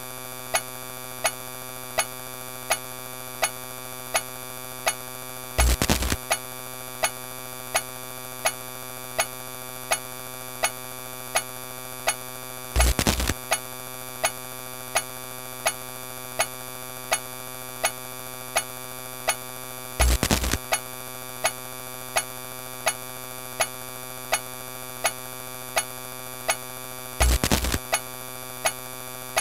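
Electronic sound effect: a steady, dense buzzing drone with a sharp click about every two-thirds of a second, and a short, louder burst with a deep thump about every seven seconds.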